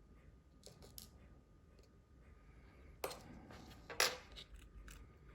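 Light clicks and small metallic clinks of hand tools being handled and set down on a hard work surface, with two louder clinks about three and four seconds in.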